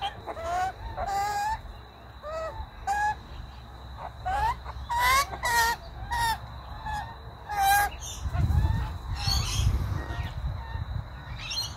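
Australian magpies calling close by, a run of short pitched notes that bend up and down, one or two a second, while they are hand-fed. After about eight seconds a low rumbling of handling noise on the microphone takes over.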